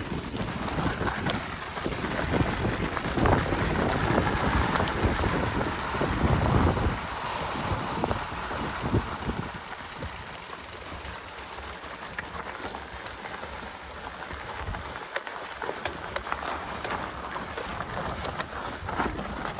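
Mountain bike being ridden up a dirt trail: a continuous noisy rumble of tyres and riding movement, louder for the first several seconds and then easing off. Scattered sharp clicks come in the second half.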